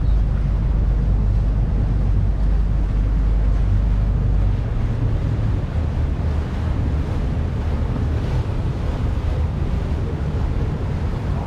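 Wind buffeting the microphone over a steady rush of noise, with a heavy low rumble that eases about four and a half seconds in.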